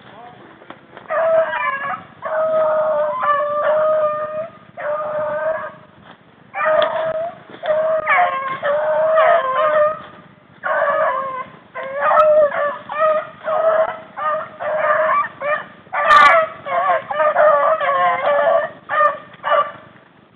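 Rabbit hounds baying in a long run of drawn-out howling calls with short breaks, the voice hounds give while running a rabbit's scent. One sharp crack sounds about 16 seconds in.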